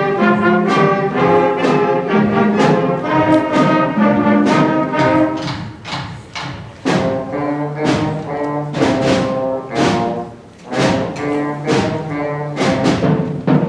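Student concert band playing a blues piece: brass and wind chords held in phrases, punctuated by frequent sharp percussion strikes, with two brief drops in volume partway through.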